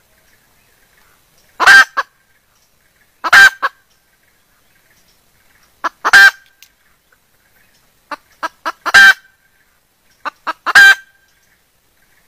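Female junglefowl calling: five loud, short calls spaced one to three seconds apart, several led by a few quick softer notes. This is the call of a hen in breeding condition calling for a cock, used as a lure.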